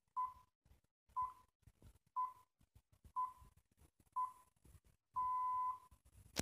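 The BBC Greenwich Time Signal pips, played through the loudspeaker of an Ekco T331 405-line television: five short pips a second apart, then a longer sixth pip about five seconds in that marks the hour.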